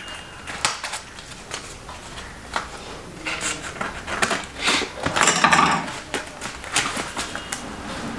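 Packaging being handled and opened by hand: irregular rustles and crinkles, loudest in a cluster around the middle.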